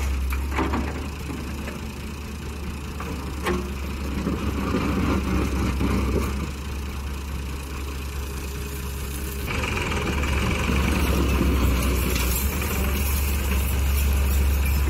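Diesel engines of a Hyundai wheeled excavator and a Massey Ferguson 260 tractor running steadily, with two sharp knocks, one under a second in and one about three and a half seconds in. The sound grows louder and harsher from about nine and a half seconds in, as the loaded tractor pulls away.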